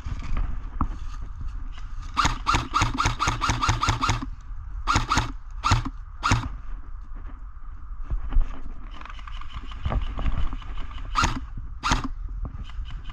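Airsoft guns firing: a fast string of about ten shots, a few seconds in, then scattered single shots.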